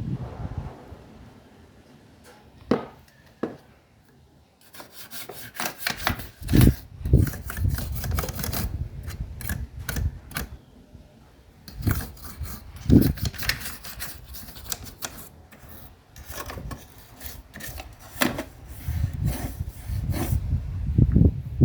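Irregular hand rubbing and scraping strokes on a hard surface, mixed with knocks, as parts of an old DVD player are worked on for restoration. There are a couple of light knocks at first, then a long run of rubbing that stops briefly twice.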